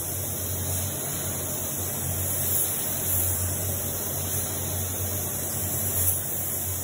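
Steady low hum under an even airy hiss, the running air noise of an automotive paint spray booth during sealer spraying.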